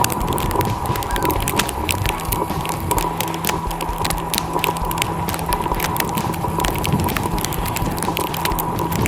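Walking through wet snow: dense, irregular crackling and crunching over a steady high-pitched whine, with a lower steady hum coming in about two seconds in.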